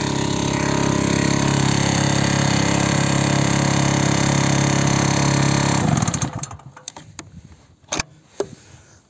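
Small portable petrol generator running steadily, then stopping about six seconds in, its drone dying away within a second. A few sharp clicks follow.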